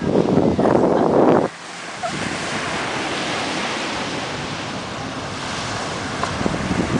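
Small surf breaking and washing up on a sandy beach, a steady hiss, with wind buffeting the microphone. The buffeting drops away suddenly about a second and a half in and comes back near the end.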